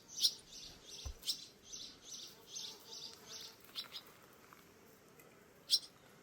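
Small birds chirping: a quick series of short, high chirps, two or three a second, for about four seconds, then one more chirp near the end.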